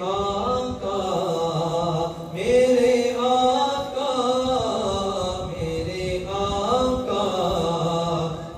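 A man reciting an Urdu naat, singing in long, drawn-out melodic phrases.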